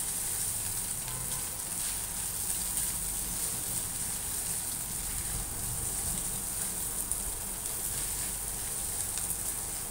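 Corned beef sizzling steadily as it fries in a nonstick pan, stirred with a spatula that scrapes and ticks faintly against the pan. It is being cooked down until the moisture is gone and the meat is dry and crisp.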